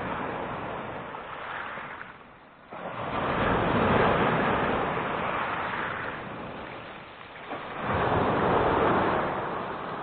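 Black Sea surf washing on the shore: two surges of waves, the first about three seconds in and the second about eight seconds in, with a brief lull between them.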